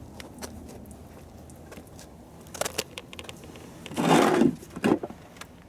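Handling noise from a plastic car ramp being turned over and examined: light clicks and knocks, then a louder scraping rustle about four seconds in and a short knock just after.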